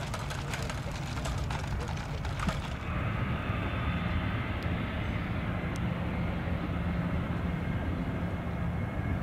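Boeing 737 jet engines at take-off power on the runway: a steady rumble with a low hum and a high whine. It begins about three seconds in, after a cut from a crackly, noisy taxiing sound.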